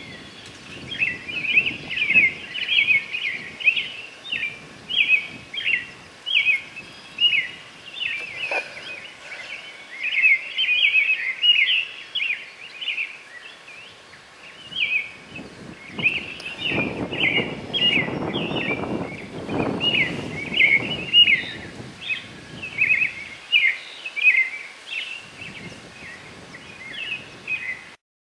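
Birds chirping and calling continuously outdoors at dusk, a dense run of short, high chirps several times a second. Low rumbling noise swells in the middle, and the sound cuts off suddenly near the end.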